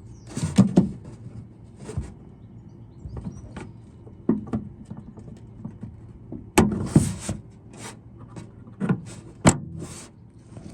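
Irregular plastic clicks and knocks from working the rod clips off the Fiat 500's exterior door handle inside the door, with two sharper snaps about six and a half and nine and a half seconds in.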